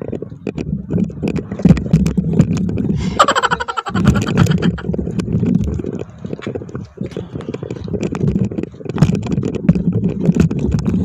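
Loose stones and gravel crunching and clicking under hands and feet as a person scrambles over a steep rocky slope, over a loud low rumble on the microphone.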